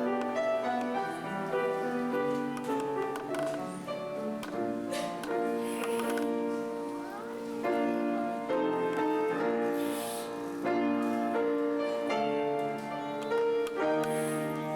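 Slow keyboard music with held chords under a simple melody, each note sustained for a second or two: wedding processional music.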